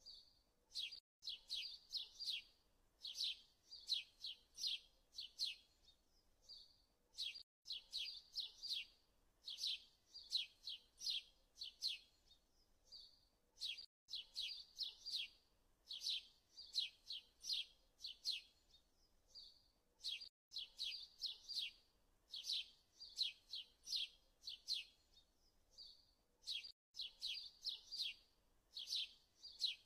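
Quiet birdsong: quick clusters of high chirps. The same stretch repeats as a loop about every six and a half seconds.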